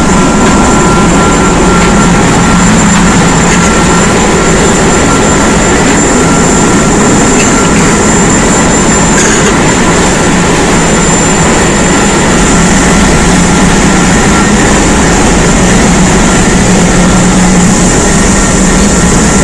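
Loud, steady machinery noise of a ship's engine room, unchanging throughout, with a constant high whine over a low hum.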